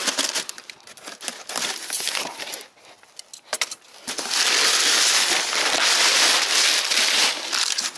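Scissors and a cardboard box being handled, with scattered clicks and short rustles as the box is cut open. About four seconds in, loud continuous rustling and crumpling as brown kraft packing paper is pulled out of the box.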